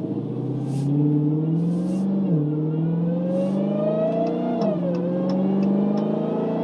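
The supercharged 6.2-litre Hemi V8 of a Dodge Challenger SRT Hellcat Redeye accelerates under gentle throttle. Its pitch climbs and then drops twice, about two seconds and nearly five seconds in, as the automatic gearbox makes smooth upshifts.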